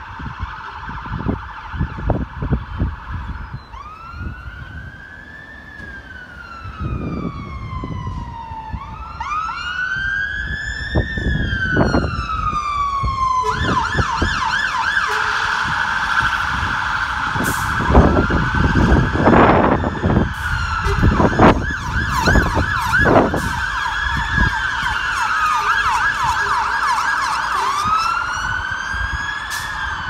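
Electronic sirens of two Scania P280 fire engines on an emergency run, switching between slow rising-and-falling wails and a fast yelp. From about halfway through the two sirens overlap, and they get louder as the engines approach. Scattered low thumps sound on the microphone.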